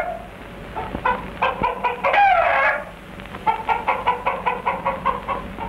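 Gamecocks sparring and calling: a drawn-out rooster call that falls in pitch in the first half, then a quick run of clucks, about six a second.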